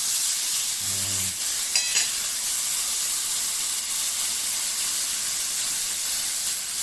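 Cut-up chuck eye steak pieces sizzling steadily as they sear in a hot stainless steel skillet, with one brief sharp knock just before two seconds in.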